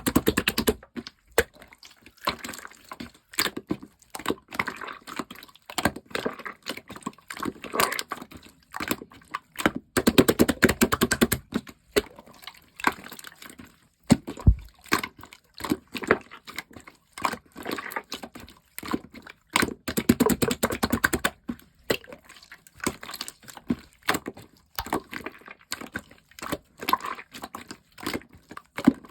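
Clear slime being squeezed and pressed by hand, making a steady run of small wet pops and clicks, with thicker clusters of popping about ten seconds in and again about twenty seconds in.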